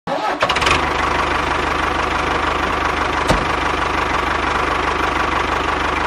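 Tractor engine starting and then idling steadily with a fast, even low chug. One short sharp click about three seconds in.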